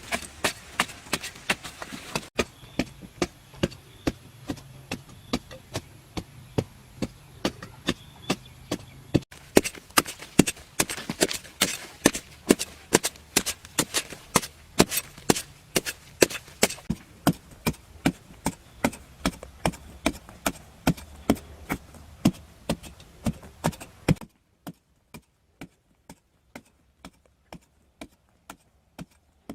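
Rapid, repeated sharp strikes, like a hand tool chopping or knocking, at about two to three a second; the background changes abruptly a few times. Near the end the strikes turn into fainter, more widely spaced clicks.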